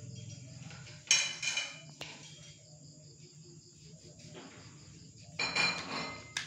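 Hard plastic toy train parts being handled over a clear plastic packaging tray: two short bursts of plastic rustling and clattering, about a second in and again near the end, followed by a sharp click as a piece is set down.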